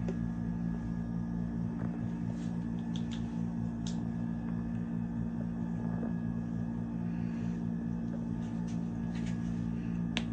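A steady low hum, with a few light plastic clicks as a makeup brush is handled and fitted into the handle of an electric brush-cleaning spinner.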